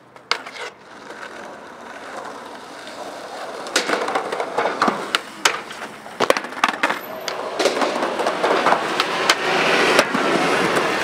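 Skateboard wheels rolling on a concrete sidewalk, growing louder, with a series of sharp clacks as the tail pops and the board slaps and clatters on the ground; about six seconds in the board flips away from the skater and clatters loose. Near the end a city bus passes close by, adding a broad rumble under the rolling.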